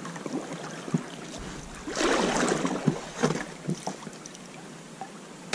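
Paddle strokes splashing in the water, with a few sharp knocks, as an inflatable PVC kayak is worked through fallen trees on a shallow river. The splashing is loudest for about a second and a half, starting about two seconds in.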